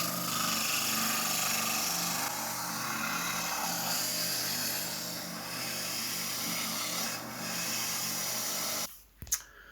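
Power sanding machine running, with wood held against the abrasive: a steady motor hum under a dense, rasping sanding noise. It stops suddenly a little before the end.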